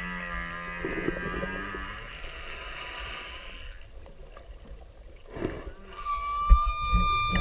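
Whale calls: a low, drawn-out pitched call that ends about two seconds in, then after a quieter gap a steady higher-pitched tonal call begins about six seconds in, with low thumps near the end.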